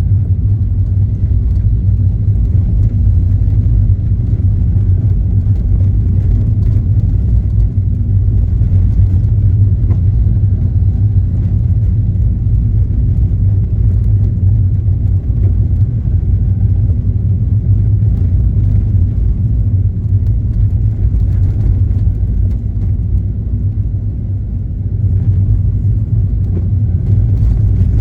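Car driving along: a steady low rumble of road and engine noise. It eases off for a moment near the end and then comes back.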